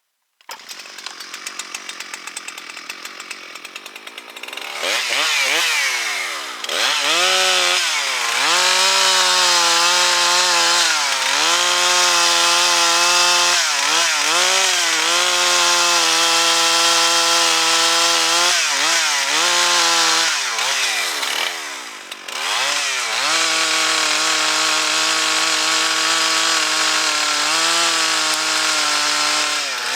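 Large gas chainsaw idling briefly, then revved to full throttle and cutting wood. Its pitch sags and recovers again and again as the chain loads up in the cut. It drops back to idle about 22 seconds in, then revs up and cuts again.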